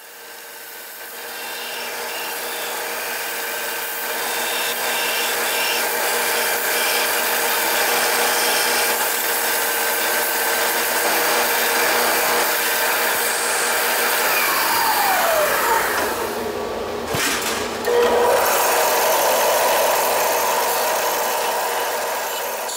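Belt sander running with an aluminum plate held against the moving belt: a steady abrasive grinding with a constant whine. About two-thirds of the way through, a falling whine leads into a brief break, and then the grinding resumes.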